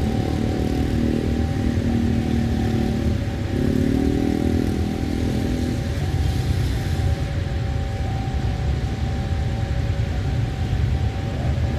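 Steady low engine rumble. Over it, during the first six seconds, a wavering pitched sound comes in two stretches with a short break between them.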